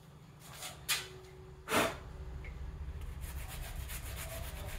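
Blue scuff pad scrubbing the gasket surface of the Cobra's aluminium engine block in quick back-and-forth strokes, cleaning it before reassembly. Two short knocks come about one and two seconds in, before the steady scrubbing takes over.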